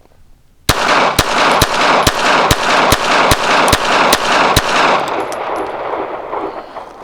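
Ruger Security-380 pistol firing ten .380 rounds in quick succession, a little over two shots a second, starting just under a second in. The echo fades over the last two seconds.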